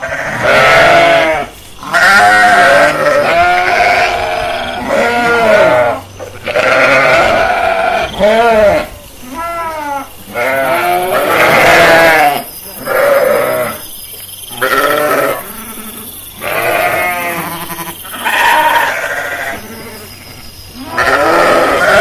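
A ewe and her newborn lambs bleating over and over, a dozen or more calls each lasting about a second, with a quavering pitch.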